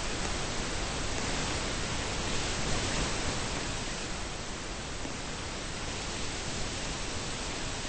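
A steady, even hiss that dips slightly about four seconds in.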